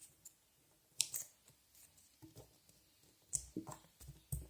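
A sheet of paper being folded by hand into an origami shape: a few short, faint crinkles and creasing clicks, one about a second in and a small cluster near the end.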